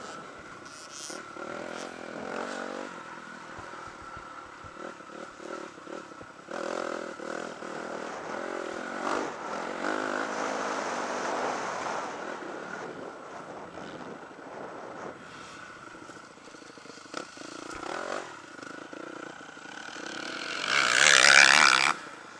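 Motocross dirt bike engine revving up and down while riding a bumpy dirt track, heard from a camera mounted on the bike, with scattered knocks and rattles. A loud rushing burst comes near the end.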